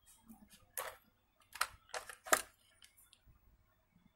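Metal multimeter probe tips scraping and clicking against the bare wire ends of a phone charger lead, a handful of short scratchy clicks with the loudest a little past two seconds in, as the probes are worked into firm contact.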